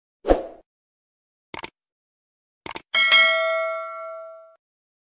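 Subscribe-button animation sound effects: a short soft thud, a click about a second and a half in, a quick double click a little later, then a notification-bell ding that rings out for about a second and a half.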